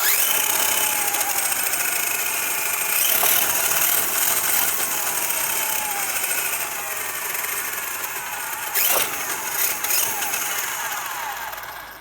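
Redcat Volcano EPX Pro's brushless motor and gear drive revved in bursts: a whine that rises at the start and again about three seconds in, falls away slowly, then two short spikes near the end, with a loud scratching gear noise throughout. The owner takes it for the motor having moved out of position, its pinion seeming to sit too far from the spur gear.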